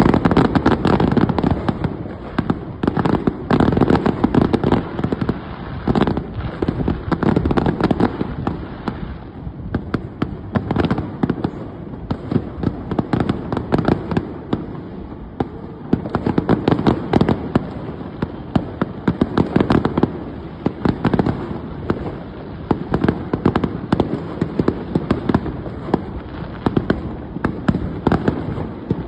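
New Year fireworks going off: a dense, continuous barrage of bangs and crackling pops, with louder clusters swelling and easing every few seconds.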